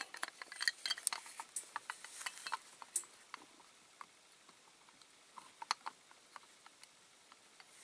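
Small clicks and clinks of a diecast model lorry's metal body being fitted onto its base: a quick run of them in the first three seconds, then a few more near six seconds.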